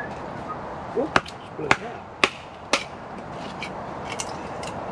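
A fire starter struck over tinder between two split logs to light a fire: four sharp strikes about half a second apart, then a few fainter ones near the end.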